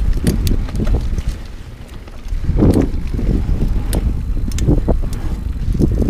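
Wind rushing over an action camera's microphone and the tyre rumble of a Dartmoor Primal hardtail mountain bike on a dirt singletrack, with scattered rattles and knocks from bumps in the trail. The noise drops briefly about two seconds in, then picks up again.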